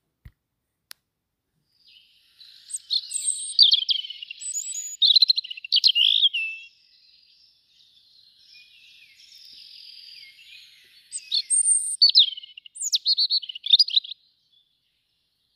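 A songbird singing: bursts of high, quick, varied twittering phrases, with a softer, quieter stretch in the middle.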